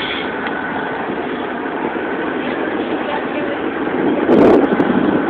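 Steady road and engine noise inside the cabin of a moving car. A few louder bumps and clicks come about four seconds in.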